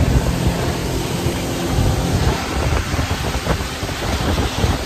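Motorboat running at speed over open water. A low engine drone is heard for the first couple of seconds, then mostly the rush of water and spray, with wind buffeting the microphone.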